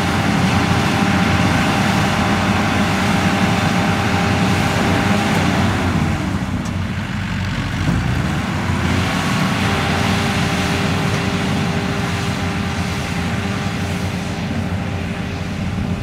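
Engines of tracked rice-harvesting machines, a small straw carrier and Kubota DC70 combine harvesters, running steadily under load. The engine note sags in pitch about six seconds in and climbs back a few seconds later.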